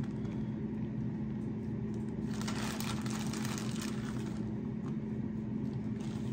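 Shredded lettuce rustling and crinkling as it is handled and spread over tostadas, for about two seconds starting a little past two seconds in, over a steady low hum.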